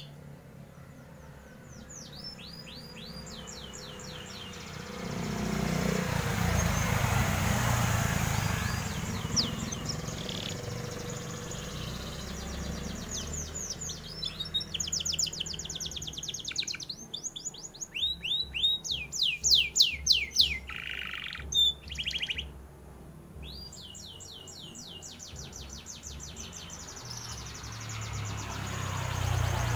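Domestic canary singing: phrases of rapid trilled high notes, in bursts with short pauses between them. A low rumbling swell rises and fades between about five and nine seconds in.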